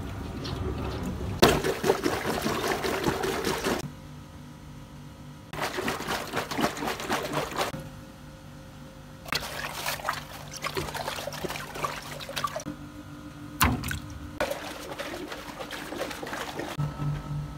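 Water from a garden hose rushing and gurgling into a stretchy rubber squeeze toy as it fills, in four bouts of a few seconds each with quieter pauses between. A single sharp knock about three-quarters of the way through.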